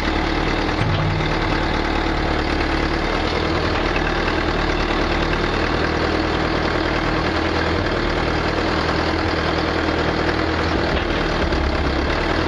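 Case 780 backhoe loader's diesel engine running steadily at about idle.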